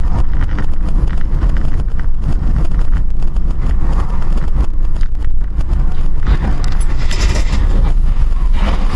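Steady low rumble of a car driving, engine and road noise picked up inside the cabin by a dashcam, with a brief stretch of louder hissing noise about seven seconds in.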